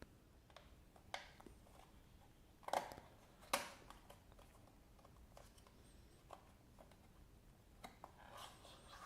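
Faint handling noises: scattered light clicks and rustling, with two sharper clicks about three and three and a half seconds in.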